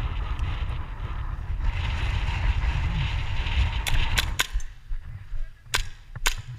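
Airsoft pistol firing: three sharp shots in quick succession about four seconds in, then two more near the end. Before the shots, wind buffets the microphone with a heavy rumble.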